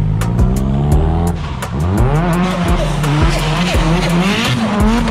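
Toyota Starlet KP60 drift car's turbocharged 20-valve engine revving hard, the revs rising and falling repeatedly with throttle and gear changes, with tyre squeal building in the second half as the car starts to slide.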